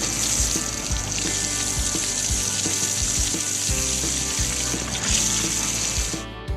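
Steady hiss of a water jet spraying, cutting off near the end, over background music with a steady beat.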